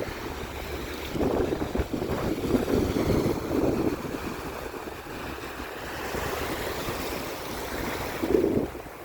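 Sea waves washing in, swelling between about one and four seconds and again near the end, with wind rumbling on the microphone.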